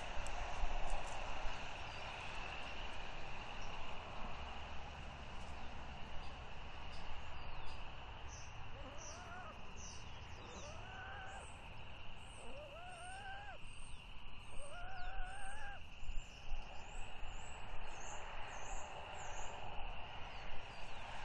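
Outdoor bird ambience: small songbirds chirping in quick high notes through the middle and latter part, and four drawn-out calls that each rise and then hold, about two seconds apart in the middle, over a steady background hiss.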